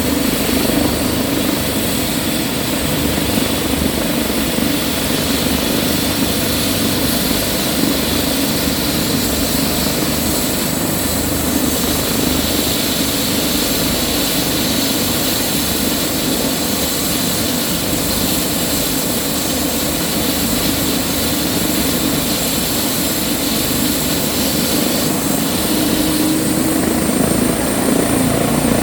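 Airbus ACH145 (BK117 D-3) helicopter running steadily: its twin turboshaft engines and rotor make a continuous loud noise with a thin high turbine whine over it, a little louder near the end.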